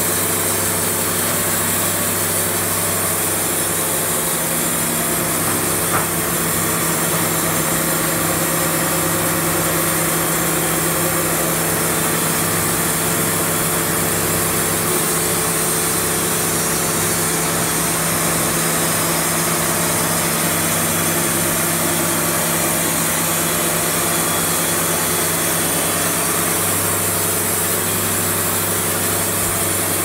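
Wood-Mizer LT70 sawmill's engine running steadily at a constant speed, with a loud even hum and hiss that does not change.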